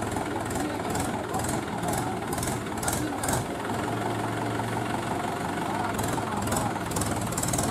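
Mahindra 475 DI tractor's four-cylinder diesel engine running at a steady low idle.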